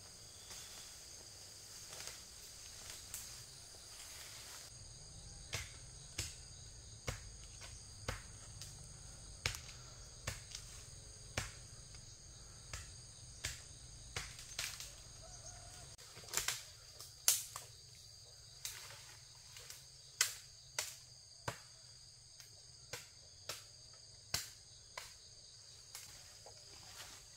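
A steady high-pitched insect chorus, with irregular sharp snaps and cracks about once a second as a person pushes through fern undergrowth, breaking twigs and stems.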